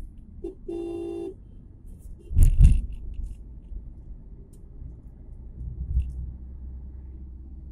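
Steady road rumble heard from inside a moving car. A short car horn honk comes about a second in, then a loud knock with a rattle around two and a half seconds in, and a smaller knock near six seconds.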